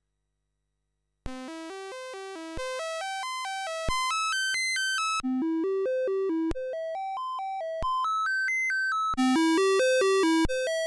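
A Commodore 64 ARMSID (ARM-based SID sound-chip replacement) playing the diagnostic cartridge's sound test, taken straight from the audio output. After about a second of silence come quick electronic notes, roughly five a second, stepping up and down a short tune. The tune repeats every second or so, each time in a different tone colour and at a different loudness as the test cycles through the chip's voices and waveforms.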